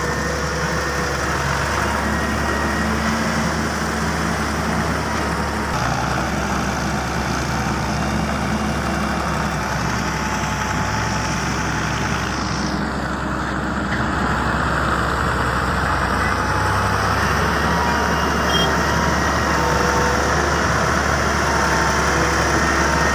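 Heavy diesel earthmoving machinery running steadily: the engines of an excavator and the dump trucks it is loading.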